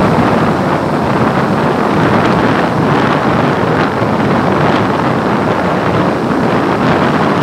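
Loud, steady wind rush blowing over the microphone of a moving two-wheeler, mixed with the ride's road noise.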